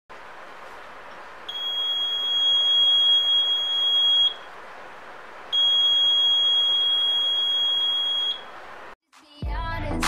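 Buzzer of a homemade PIR motion-sensor alarm sounding a high, steady tone twice, each about three seconds long, as motion trips the sensor. Intro music with a heavy beat starts just before the end.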